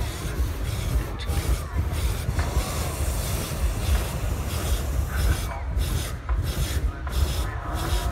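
Hot air balloon's propane burner firing, a steady rushing roar with a heavy low rumble.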